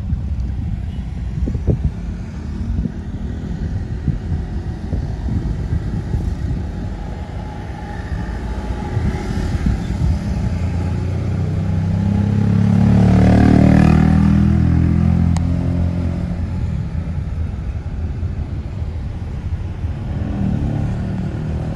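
Road vehicle noise: a steady low rumble, with one vehicle passing close that swells louder about halfway through and fades a few seconds later.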